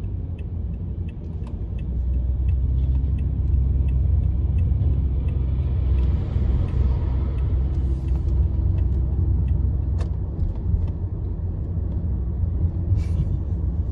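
Steady low rumble of a moving vehicle, with scattered small clicks and rattles.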